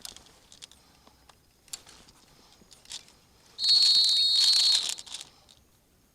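A whistle blown once, a single loud, steady high note lasting a little over a second, signalling the start of an airsoft game. Faint rustles come before it.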